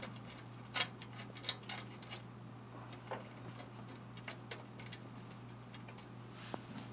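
Irregular light clicks and ticks of small steel hardware, a nut, bolt and washer, knocking against the steel suspension link as they are fitted by hand at the link's pivot, over a steady low hum.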